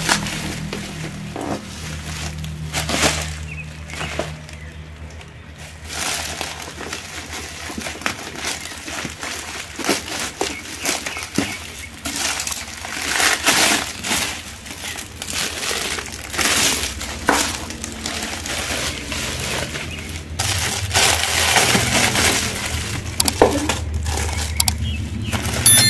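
Plastic bag and clear plastic wrapping crinkling and rustling in irregular bursts as they are pulled open and handled.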